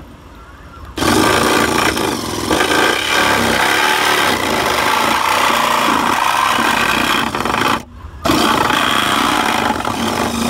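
Corded power tool cutting a hole in a Mitsubishi Montero Sport's sheet-metal front fender. It runs steadily from about a second in, stops briefly near eight seconds, then cuts again.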